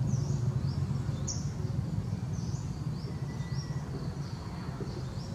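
Outdoor ambience of small birds chirping, short high chirps repeating several times a second, over a steady low rumble.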